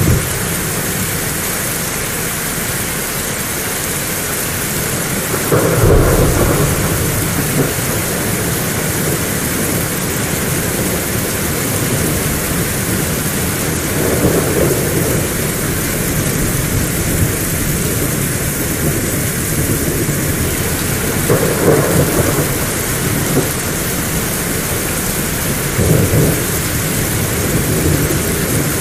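Heavy rain falling steadily, with thunder rumbling in four times: about six seconds in, around the middle, and twice near the end, the first the strongest.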